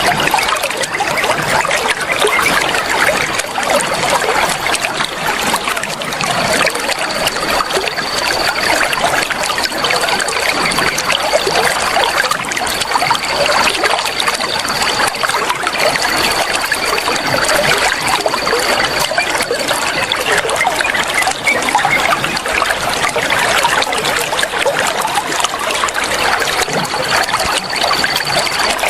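Flowing water trickling and splashing steadily and continuously. A faint, thin, high steady tone comes and goes over it.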